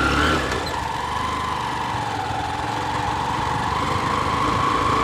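Motorcycle engine running steadily while riding over a rutted dirt track. Its whine dips about half a second in, then rises slowly as it picks up speed.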